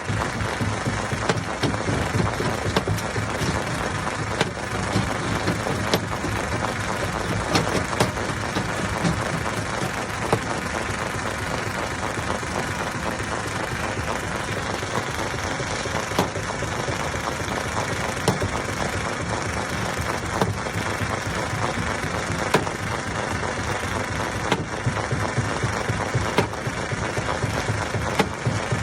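Hammer stone crusher running: a steady, heavy mechanical din with frequent sharp knocks of rock struck and broken inside the machine.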